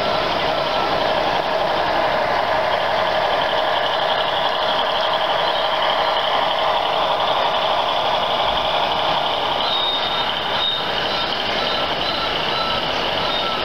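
Steady loud din of a busy exhibition hall as model trains roll past on the layout's tracks. Through it, a short high beep repeats evenly, a little faster than once a second, near the start and again from about ten seconds in.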